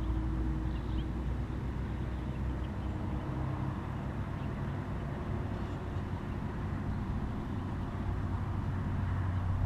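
Steady low engine hum of a motor vehicle running, with a few held low tones that shift slightly in pitch.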